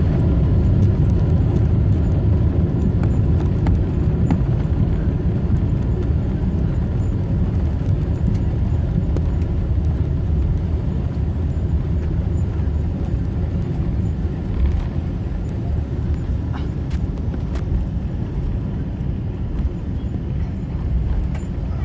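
Cabin rumble of a Boeing 777 slowing down after touchdown, engine and wheel noise steady and low, easing gradually, with a few light rattles.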